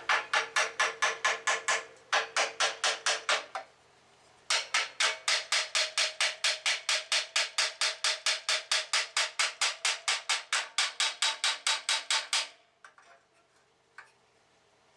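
Hand hammer striking a steel clutch pressure plate in fast, even blows, about five a second with a metallic ring, in three runs, the last about eight seconds long. The hammering is working a pressure plate stuck on rusted dowel pins off the flywheel.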